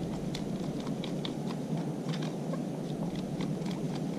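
Light, irregular clicks and taps, several a second, from handling paint and rocks: a plastic paint bottle being squeezed and a brush working on a stone. Under them runs a steady low rumble of outdoor noise.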